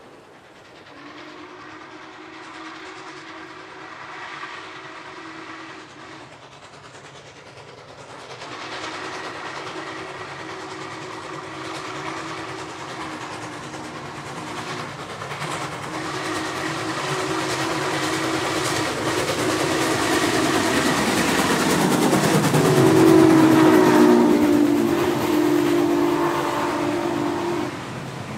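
Norfolk & Western 611, a class J 4-8-4 steam locomotive, sounding its chime whistle in four long blasts, getting louder as it approaches. The pitch drops as the engine passes, about 22 seconds in, and the clickety-clack of passenger car wheels follows near the end.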